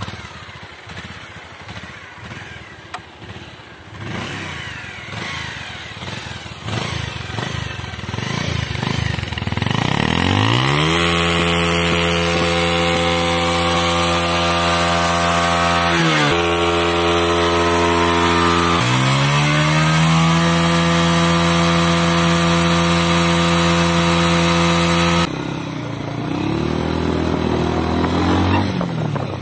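Bajaj Pulsar 150's single-cylinder engine putters unevenly at idle, then is revved up and held at high revs for several seconds. The revs dip sharply twice and climb straight back. Near the end the sound drops abruptly to a lower, wavering engine note.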